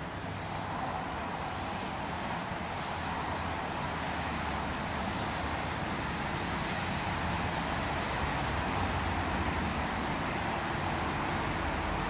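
Steady background rumble and hiss with a low hum, unchanging throughout, with no distinct event.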